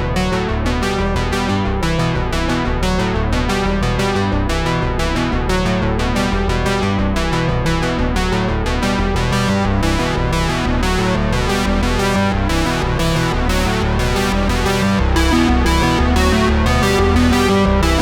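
Background music: synthesizer and electric piano over a steady beat.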